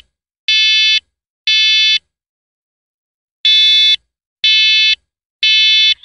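First Alert smoke and carbon monoxide alarm sounding its smoke alarm in the temporal-three pattern: shrill half-second beeps in sets of three with a pause between sets, the signal for smoke or fire. Two beeps finish one set, and after the pause a full set of three sounds.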